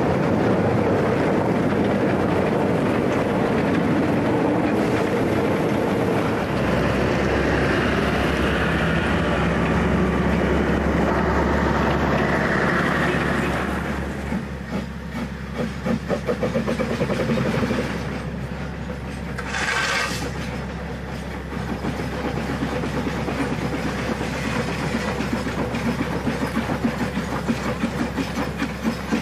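Steam locomotive working a train: a dense running noise gives way about halfway through to a steady rhythm of beats, with a brief hiss around two-thirds of the way in.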